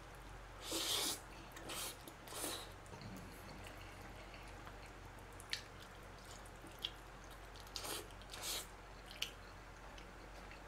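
Close-up eating sounds of a man taking forkfuls of cheese-baked spaghetti: a few short slurps in the first two and a half seconds, then scattered wet mouth clicks as he chews.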